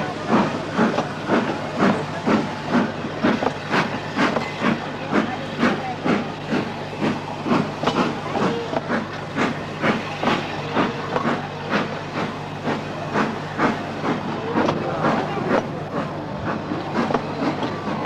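Steam locomotive working at a steady pace, its exhaust beating evenly at about three chuffs a second over a continuous hiss of steam.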